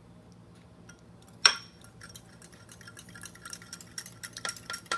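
Glass bowls handled while separating eggs: one sharp, ringing clink of glass on glass about a second and a half in, then a run of light taps and scrapes of a utensil against a glass bowl that grow busier toward the end.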